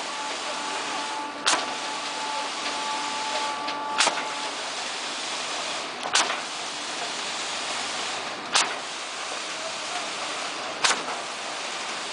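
Concrete being pumped through the steel delivery line and Royal H18 hydraulic distributor boom by a stationary piston concrete pump: a sharp knock about every two and a half seconds, five in all, as the pump changes stroke and pushes each surge of concrete through the pipe, over a steady rushing noise.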